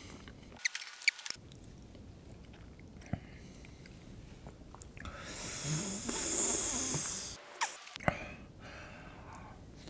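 Close-miked eating sounds of a person with mint chocolate chip ice cream: a few small mouth clicks in the first second, then a louder breathy hiss lasting about two and a half seconds midway.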